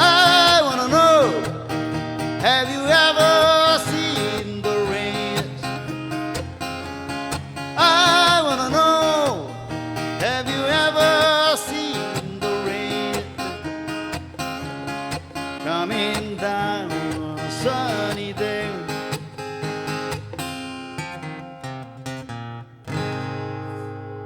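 Acoustic guitar strummed with a voice singing the closing phrases of the song. The strumming ends with a final chord struck near the end that is left to ring out.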